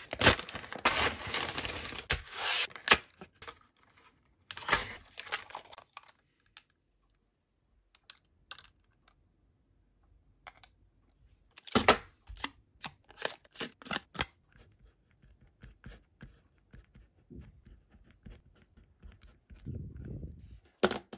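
A kraft paper mailer torn open, with loud tearing and rustling in two spells, then scattered sharp clicks and taps as the packaging and pens are handled. Near the end comes the soft scratch of a Pentel EnerGel 0.7 mm gel pen writing on paper.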